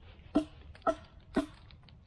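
Three chopping blows into a log, evenly spaced at about two a second, each a sharp knock with a short woody ring.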